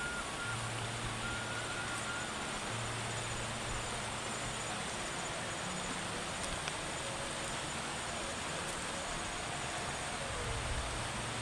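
Outdoor countryside ambience: a steady hiss with a faint, rapid high-pitched insect trill over it and a low hum that comes and goes.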